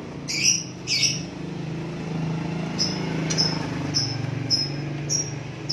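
A small bird chirping: two short chirps, then a run of brief high chirps about every half second, over a steady low hum.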